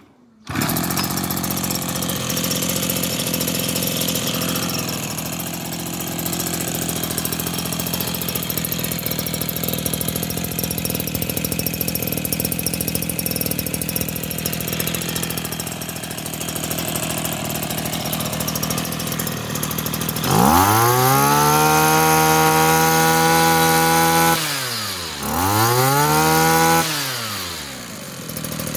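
Small two-stroke engine of a Shibaura grass cutter running steadily, then revved to high speed twice: held high for about four seconds, dropping back briefly, then a second shorter rev before it falls back to idle near the end.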